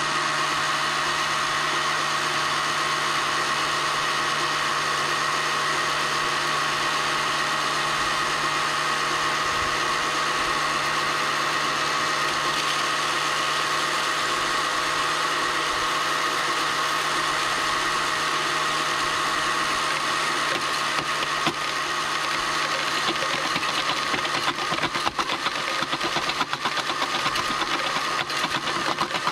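Steady mechanical hum and whine of a running RC scale screening plant and its conveyors, with the RC excavator working. In the last several seconds, small stones rattle and clatter over the screen and conveyor belt.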